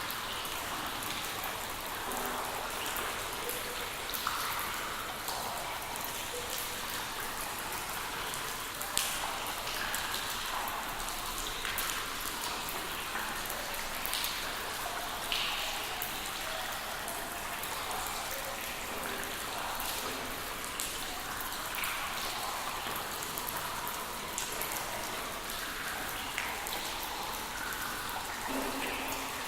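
Steady rain, with individual drops pattering and ticking on a hard surface and a few louder drops here and there.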